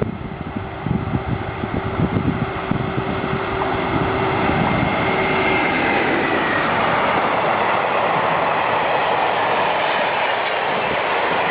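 Train passing close by at speed. Through the first half its wheels clatter over rail joints under a steady hum, then it settles into an even rushing rumble.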